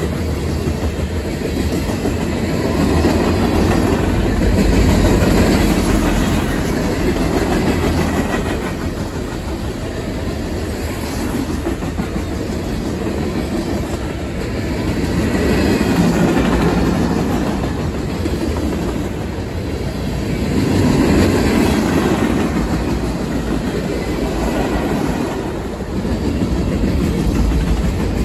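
Freight cars of a long manifest train, covered hoppers and boxcars, rolling past close by: a steady rumble of steel wheels on rail with clickety-clack over the joints. It swells and eases every few seconds as the cars go by.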